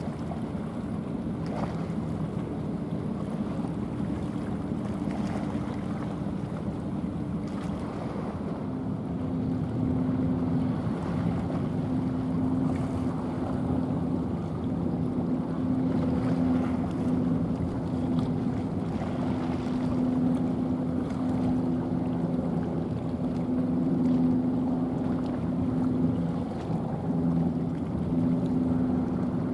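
Small coastal chemical tanker passing close by: the steady drone of its diesel engine, with water rushing along the hull. The engine drone grows louder about nine seconds in as the ship comes abreast.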